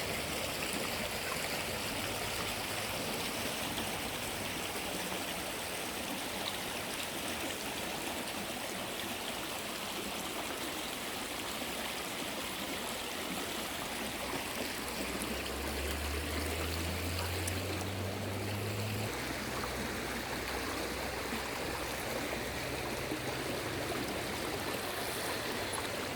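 Steady rush of running water, even and unbroken, with a low hum joining in for a few seconds past the middle.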